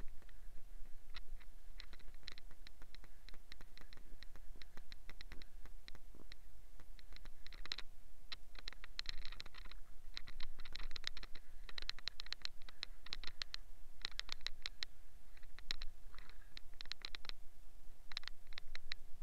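Stiff brush scrubbing a tyre and wheel rim: quick, scratchy strokes that come in uneven bursts, with a faint steady hum underneath.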